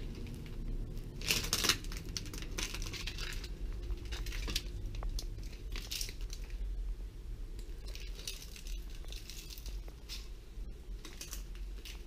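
Footsteps crunching and scuffing over debris (broken glass, peeled paint chips and scattered paper) on a floor, in irregular bursts, the loudest about a second and a half in.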